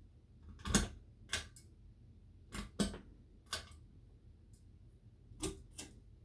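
Sharp clicks and knocks at uneven intervals, about ten in all and several in quick pairs, over a faint steady low hum.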